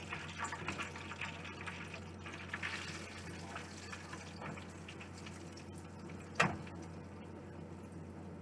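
Hot oil sizzling and crackling in a skillet as breaded beef cube steak fries, with one sharp knock a little over six seconds in.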